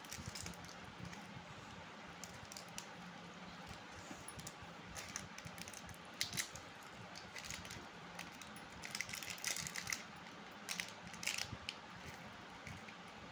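Plastic candy wrappers crinkling and crackling in short irregular bursts as fingers twist and tear open a tube pack of small chocolate candies, over a low steady hiss.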